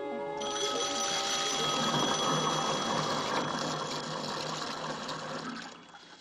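Kitchen sink garbage disposal grinding with a low motor hum while a telephone bell rings over it. Both fade down near the end.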